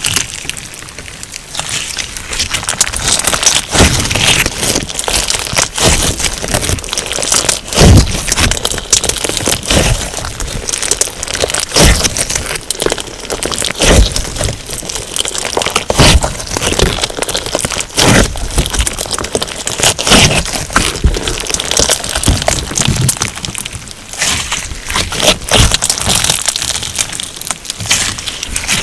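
Slime packed with sugar beads being squeezed and pressed by hand: a dense crackling crunch of the beads, with louder pops every second or two.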